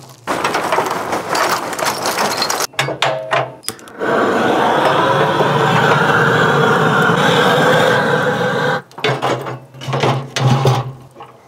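Handheld propane torch running with a steady roaring hiss for about five seconds, lighting the fire in a smoker's firebox. Before it comes a few seconds of rattling clatter, and near the end there are metal clanks as the cooking grate is set on.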